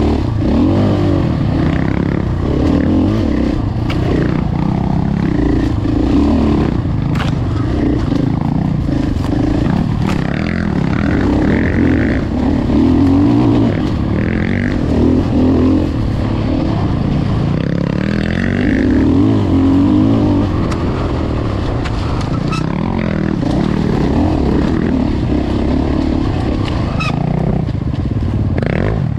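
Enduro dirt bike engine under the rider, revving up and down continuously with the throttle over fast trail, with scattered knocks and rattles from the bike over rough ground.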